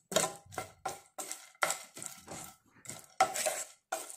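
Wooden spatula scraping and stirring dry spices, cardamom pods and ginger powder, around a non-stick frying pan while they dry-roast. It makes a run of short, uneven scraping strokes, two or three a second.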